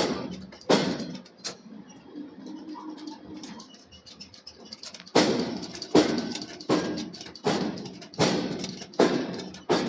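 Forging hammer striking a steel billet in steady, evenly spaced blows, each with a short ringing decay. Three blows, a pause of about three and a half seconds, then seven more at the same pace, a little under a second apart.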